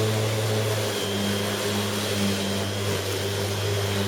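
Bosch Rotak 34 electric rotary lawnmower running steadily: a low motor hum with a high whine above it.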